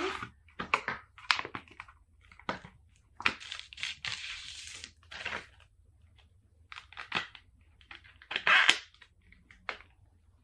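Clear plastic phone case being unboxed and handled: irregular crinkling, tearing and scraping of its plastic packaging, with a longer rustle about three seconds in and the loudest crackle near the end.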